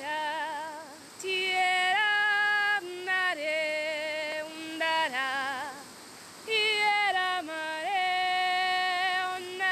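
A woman's voice singing a slow lullaby melody alone, with long held notes and a gentle vibrato, in two phrases separated by a short breath about six seconds in.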